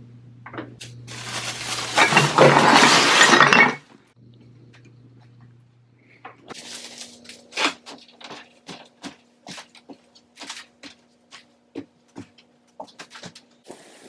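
Refuse with glass in it being dumped out, a loud clattering crash of about three seconds with glass clinking. Then comes a run of short, light knocks, like footsteps.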